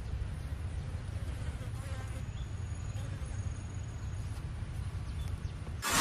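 Outdoor ambience of insects buzzing and chirping, with a thin high whine in the middle, over a steady low rumble. A loud whoosh cuts in right at the end.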